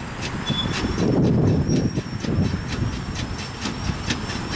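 Narrow-gauge train hauled by a W. G. Bagnell 0-4-0 saddle tank steam locomotive running past, its wheels clicking sharply several times a second over the rails, with a rumble underneath and a thin high squeal wavering through.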